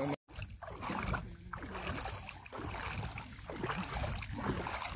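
Water sloshing and splashing around the legs of people wading through shallow sea water, with some wind on the microphone.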